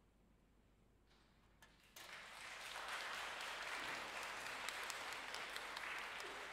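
A short hush, then audience applause that starts suddenly about two seconds in and keeps going.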